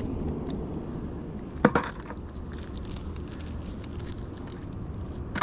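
Scrap metal pieces clinking and rattling as they are pulled off a fishing magnet, with small clicks throughout and two sharper clanks, one about a second and a half in and one at the end, over a steady low background rumble.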